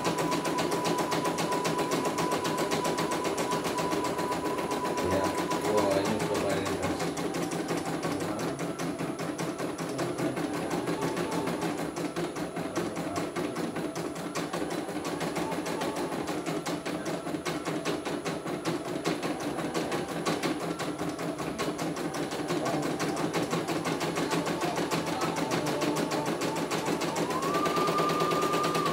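Computerized embroidery machine stitching a test design, its needle going in a fast, even rattle of strokes. It is running smoothly. A thin steady whine lies over the stitching for the first six seconds and comes back near the end.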